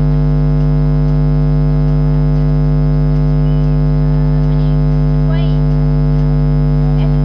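Loud, steady electrical hum made of several fixed tones, unchanging throughout, with faint bits of a voice underneath.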